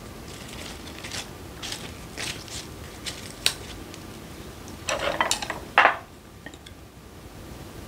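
Lettuce leaves rustling and crinkling as they are picked up and stacked in the hand, with light clicks of tableware. About five seconds in, a louder clatter as chopsticks are picked up.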